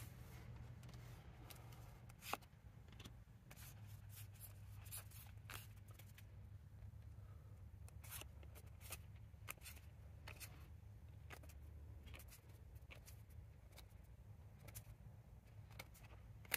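Faint clicks and slides of Pokémon trading cards being flipped through one at a time in the hands, with one sharper click about two seconds in, over a low steady hum.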